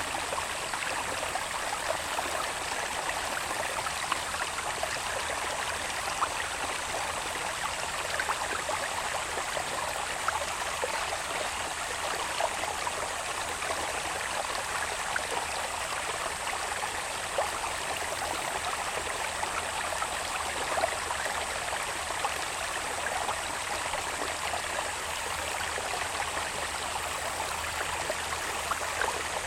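Small irrigation channel babbling steadily, with little splashes and trickles. A thin, steady, high insect drone runs over it.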